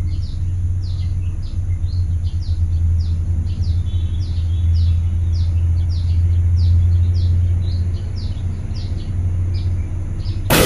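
Low steady hum of the idling Scania P410 truck, with a small bird chirping over it, two or three short falling chirps a second. Near the end a loud burst of compressed-air hiss starts as the air-brake solenoid valve under test (V81, traction control) fires and vents air from the brake chambers.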